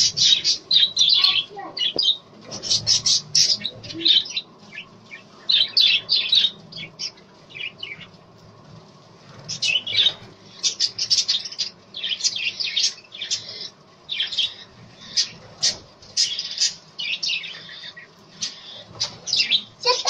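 A flock of budgerigars chattering and chirping in rapid runs of short, high calls, with a brief lull about eight seconds in.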